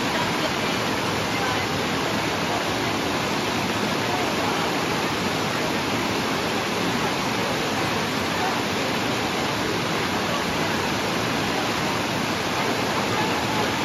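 Low river waterfall: water pouring over a rock ledge and rushing through the pool below in a steady, unbroken rush.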